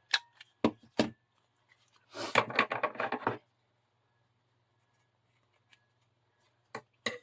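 Paper crafting on a tabletop: a few sharp taps, then a quick run of rapid scratchy strokes lasting about a second, as paper is worked around a playing card; a few more taps near the end.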